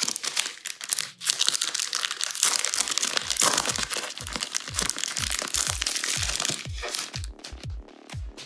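Foil wrapper of a trading card packet crinkling and tearing as it is ripped open by hand, the crackle stopping about two-thirds of the way through. Background music with a steady, deep kick drum underneath from about three seconds in.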